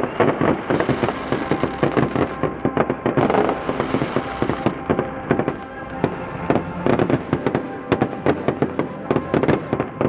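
Fireworks grand finale: a dense, rapid barrage of shell bursts and crackling bangs, several a second, going on without a break.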